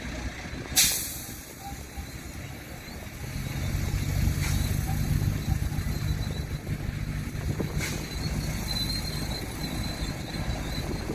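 Heavy diesel earthmoving machinery at work: a short, sharp air-brake hiss about a second in, then a heavy diesel engine pulling harder and louder from about three seconds in, running steadily under load.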